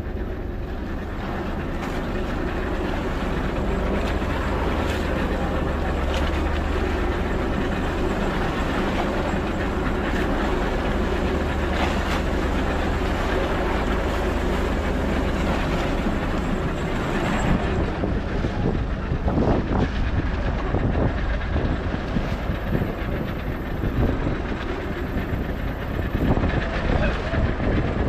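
Fishing boat's engine running steadily, with wind and water noise over it and irregular louder thumps in the second half.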